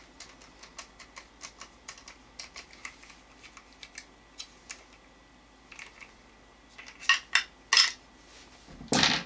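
Plastic and metal parts of a GSG-5 rifle's lower assembly clicking and clacking as they are handled and fitted on a wooden table. Faint small clicks come first, then a few louder clacks and a solid knock near the end.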